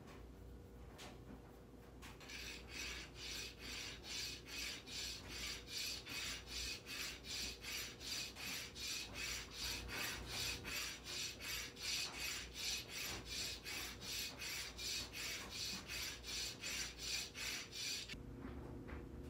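A small stone rasping back and forth against a steel hand file as it is carved: an even run of scraping strokes, about two to three a second, that starts about two seconds in and stops abruptly near the end.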